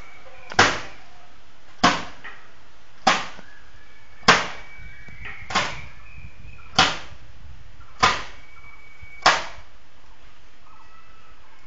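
Wet laundry beaten hard against a washing slab by hand, eight slaps at a steady pace of about one every 1.2 seconds, stopping about nine seconds in.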